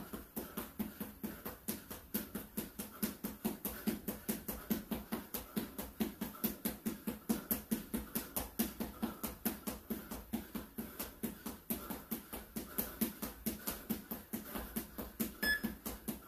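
Rapid footfalls of sneakers on a hard floor while running in place, an even patter of about four to five steps a second. A short electronic beep comes near the end.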